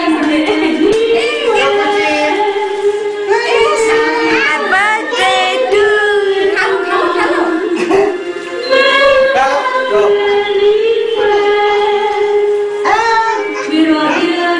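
Music playing: a song with singing voices over a held melody line that steps from note to note.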